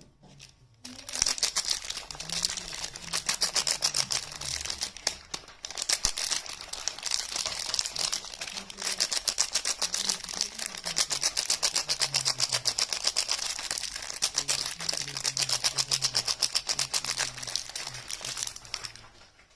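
Soap packaging being unwrapped and crinkled: a dense run of rapid, crisp crackles that starts about a second in and stops near the end.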